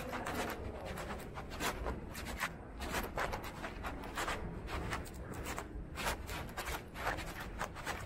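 Soft, irregular scratchy rustling and scuffing, several small clicks a second, from the person filming as they walk across the carpet, over a low steady rumble of room noise.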